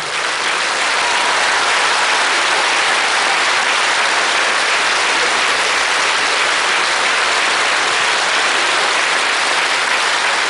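A large audience applauding steadily, a dense even clapping without a break.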